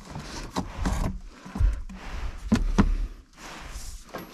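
Irregular knocks, taps and rustling from handling around a gas furnace cabinet, with a few low thumps. No motor or blower is running.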